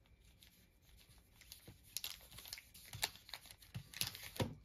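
Faint crinkling of foil trading-card pack wrappers being handled, in scattered short crackles that grow busier in the second half.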